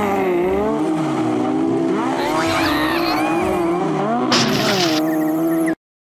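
Racing car engines running with tyre squeal, and a brief noisy burst about four seconds in as a car rolls over after a collision. The sound cuts off suddenly just before the end.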